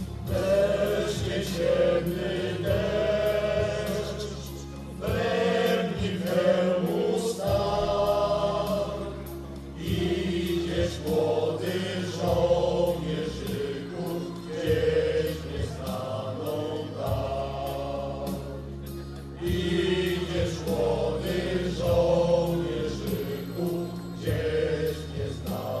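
A choir singing with instrumental accompaniment, over sustained low bass notes that change every second or two.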